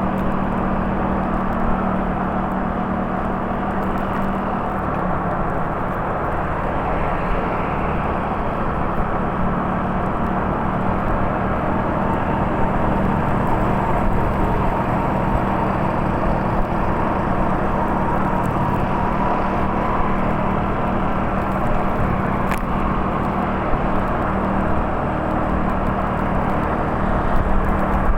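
A steady low droning hum over a rumbling noise bed, unchanging in level.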